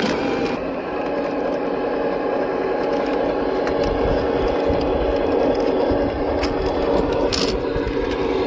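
Simulated big-rig diesel engine sound from a GT Power multi-function sound unit, playing through the speaker of a Tamiya King Hauler RC truck and running steadily as the truck drives, with the scrape and crunch of its tyres over dirt and gravel.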